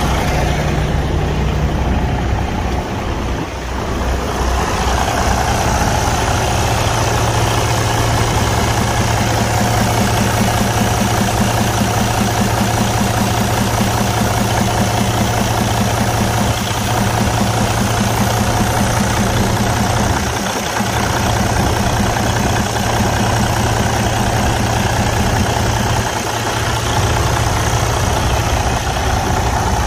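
Detroit DD15 inline-six diesel engine idling steadily, its crankcase open at the oil filler, with blowby from a cylinder compression leak.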